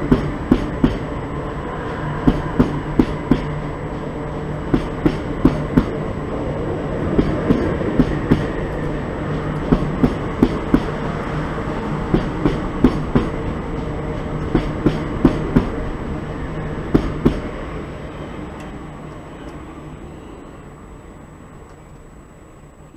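Southern electric multiple-unit train running past along the platform, its wheels clicking in regular groups over the rail joints above a steady hum. The clicks stop about three-quarters of the way through and the sound fades away as the train leaves.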